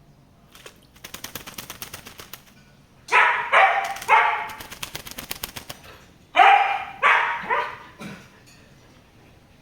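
Lory parrot giving loud, harsh squawks in two groups, three calls and then four, between fast rattling bouts of its wings beating the bathwater.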